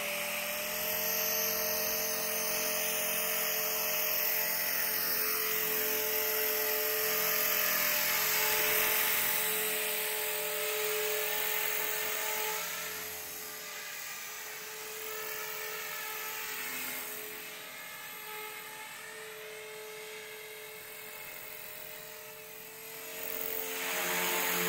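Blade 450 electric RC helicopter's motor and main rotor running with a steady high whine as it lifts off the grass and flies. The sound fades in the middle as it moves away and swells again near the end as it comes back close.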